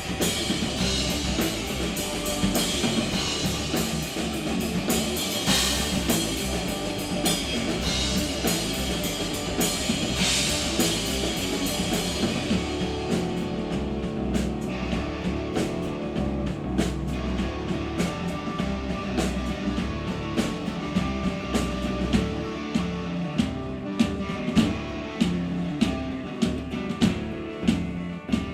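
Rock band playing an instrumental passage on drum kit and guitar. The cymbals wash over the first dozen seconds and then drop out, and sharp drum hits stand out near the end.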